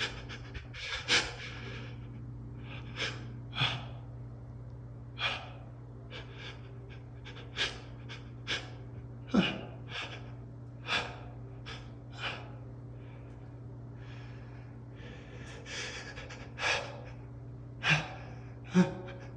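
A man's short, sharp catching gasps, about a dozen spread irregularly, as he fights an oncoming sneeze. A steady low hum runs underneath.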